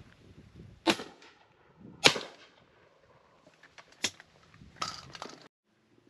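Two shotgun shots about a second apart, the second the louder, followed by a few quieter sharp clicks and knocks.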